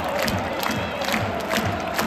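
Large football crowd of supporters chanting and cheering in unison, to a steady beat of drum and claps about twice a second.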